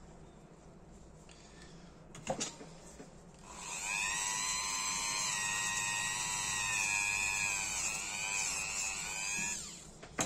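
Small handheld rotary tool spinning a wire brush wheel to clean a tiny lighter part: a high whine starts about three and a half seconds in, runs for about six seconds with its pitch sagging now and then as the part is pressed against the brush, then winds down. A sharp click comes before it starts and another just after it stops.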